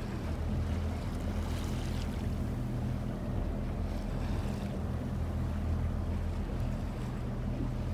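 Steady low drone of a boat's engines, with a noisy wash of wind and water over it.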